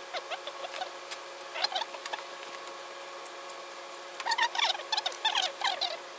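Tailor's chalk marking the wool cloth of a suit jacket along a wooden yardstick, in clusters of short quick strokes about a second and a half in and again from about four seconds, over a steady low hum. A sharp knock comes right at the end.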